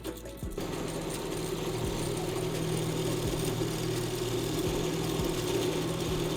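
A power tool's motor running steadily, with a hum and a dense hiss, starting about half a second in.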